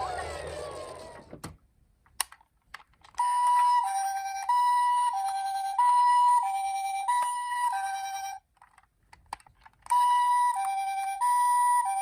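Toy ambulance's two-tone hi-lo siren, the Japanese ambulance 'pee-po' pattern, alternating between a higher and a lower note about every two-thirds of a second. It starts about three seconds in, stops briefly around eight and a half seconds, and resumes about ten seconds in.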